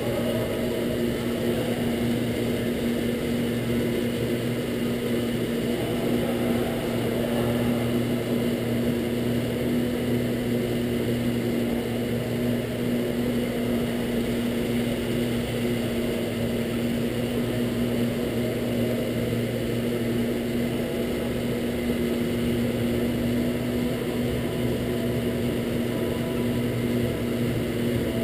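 Go-kart heard from its own seat while being driven around a track: a steady motor drone with a few unchanging low tones, under wind and tyre noise.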